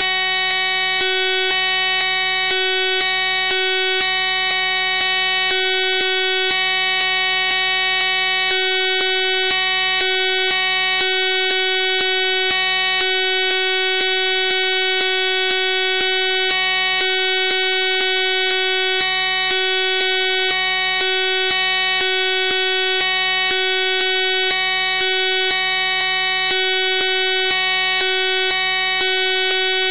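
Loud, steady electronic buzz made of many fixed tones, with a lower hum cutting in and out every second or so. This is a digital glitch in the soundtrack, not speech or music.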